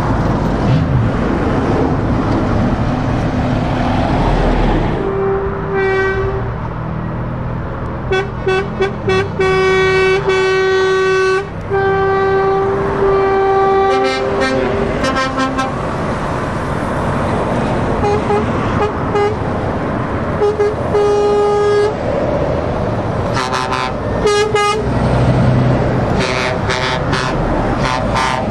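Passing trucks with engines running, sounding their horns repeatedly: a string of short toots and several longer held blasts, mostly at one pitch, over steady road traffic noise.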